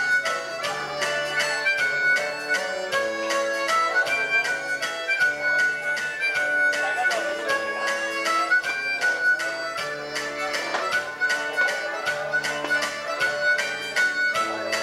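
Live band playing, a harmonica carrying the lead line over electric guitars, bass notes and a steady beat.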